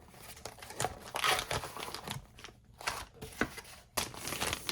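Plastic crinkling and rustling with a few sharp clicks: laptop battery parts and their wrapping being handled.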